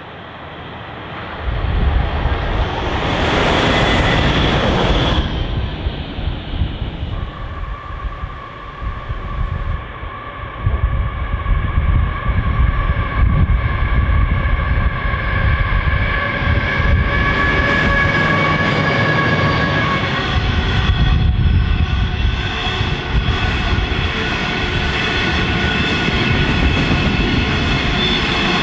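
A passenger railcar rushes past in the first few seconds, then a QR National coal train's diesel locomotives and long rake of coal hoppers roll by on a curve with a heavy, steady rumble. Several steady high whining and squealing tones run over the rumble, rising higher about two-thirds of the way through as the wagons pass.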